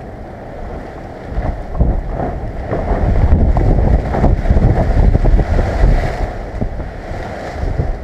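Typhoon wind gusting hard and buffeting the microphone. The gust builds about a second and a half in, is strongest in the middle, and eases near the end.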